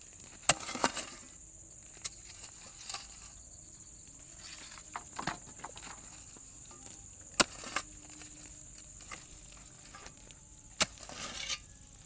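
Irregular sharp knocks and clicks, a dozen or so, the loudest about seven and eleven seconds in, over a steady high-pitched insect drone.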